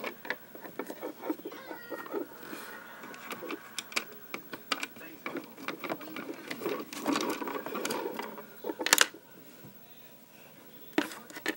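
Handling noise close to the microphone: irregular clicks, taps and rustles as stuffed toys are moved about, with a louder burst of rustling about nine seconds in before it goes quieter.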